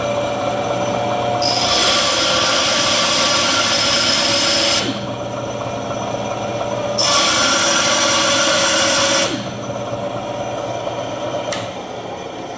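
Ryobi bandsaw running, its blade cutting through a small wood block in two passes of about three seconds each, heard as a loud hissing rasp over the steady motor hum. The saw keeps running, quieter, after the second pass, with a sharp click near the end.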